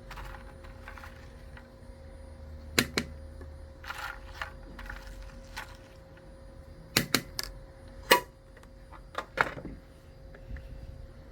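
Sharp clicks and knocks at irregular intervals, in small clusters, over a steady hum.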